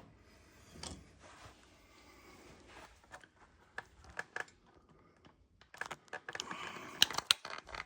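Hand work on metal parts: scattered small clicks and clinks with light rustling, and a busier run of sharp clicks about six seconds in.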